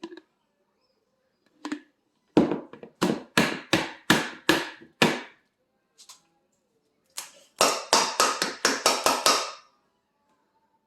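Repeated sharp knocks on a hard surface in a kitchen: a run of about eight, roughly three a second, then after a pause a faster run of about eight more.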